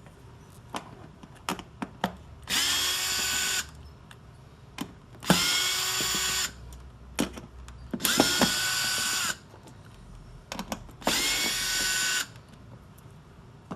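Power drill backing out screws in four short runs of about a second each, its motor whine rising quickly and then holding steady each time. Small clicks and knocks come between the runs.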